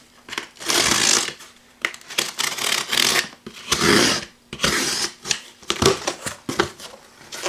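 A cardboard shipping box being cut open with a knife and unpacked: scraping and rustling of tape, cardboard flaps and packing, with many small clicks and knocks.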